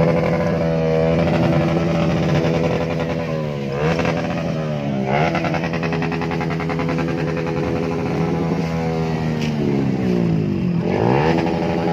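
Modified Maruti Suzuki Swift's engine held at high revs. The pitch drops and climbs back sharply three times: about four seconds in, about five seconds in, and near the end.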